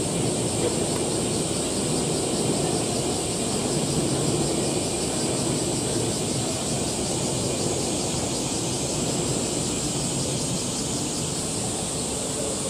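Steady ambient noise: a continuous high-pitched hiss over a low, even rumble, with no distinct calls or knocks.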